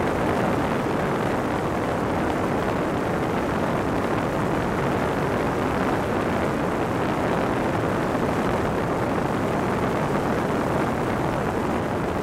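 Steady in-flight noise of a motorized hang glider (ultralight trike): wind rushing over the microphone, blended with the drone of its engine and pusher propeller, at an even level throughout.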